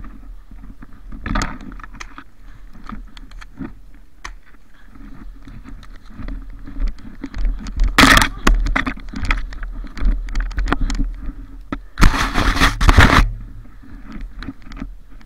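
Snow crunching and scraping with close handling noise as a person moves through deep snow, the camera rubbing against snow and clothing. Two louder rough rubbing bursts come about halfway through and again near the end.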